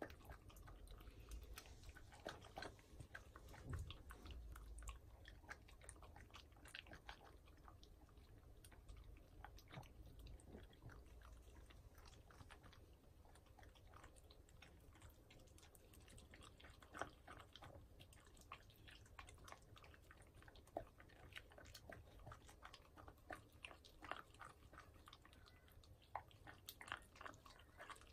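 Shiba Inu eating salmon steak and broccoli from a wooden board: a steady string of soft, wet chewing clicks and mouth smacks, close-miked.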